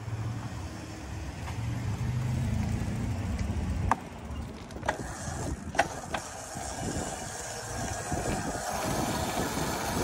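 Razor electric scooter with a small brushed DC motor setting off and riding over rough asphalt. A low steady hum for the first few seconds gives way to a few sharp clicks, then the rough rolling rattle of the motor and small hard wheels.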